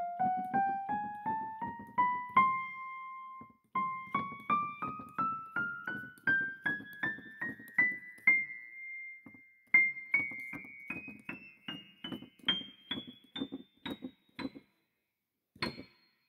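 Background piano music: single notes in quick succession climbing steadily in pitch, resting twice on a held note, then stopping shortly before one last high note near the end.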